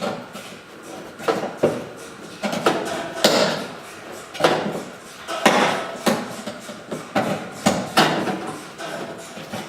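An irregular series of sharp knocks, about one a second, typical of hammer blows on sheet metal during patch-panel work.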